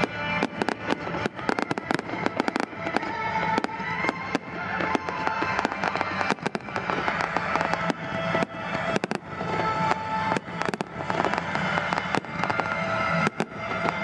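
Aerial firework shells bursting in quick, dense succession, several bangs a second, over music playing.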